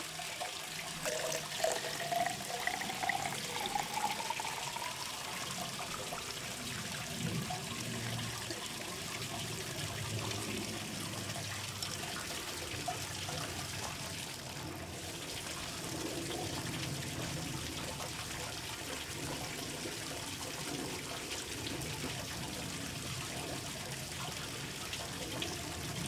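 Rum poured from a bottle into a hollow cow horn, a gurgling pour whose pitch rises over the first five seconds as the horn fills. A steady watery trickle carries on after.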